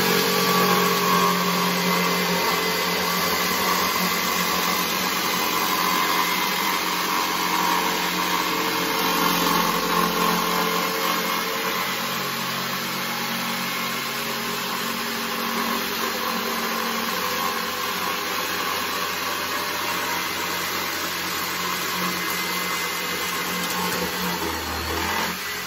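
Electric jigsaw running at full speed and cutting through plywood. It is a steady, continuous saw noise that is slightly louder in the first half and stops right at the end.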